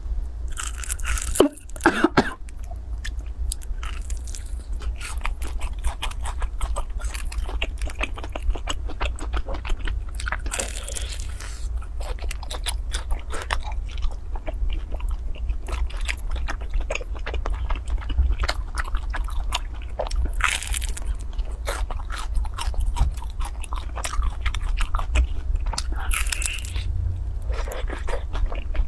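Close-miked biting and chewing of brown sugar glutinous rice cakes (hongtang ciba): a dense run of small crackles and wet mouth clicks, with a few louder bites about two seconds in. Short breathy puffs come through a few times.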